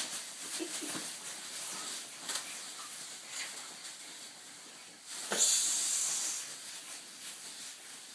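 Rustling and scuffling of two children dancing on a bed, with scattered light clicks and shuffles, and one loud hiss lasting about a second just after five seconds in.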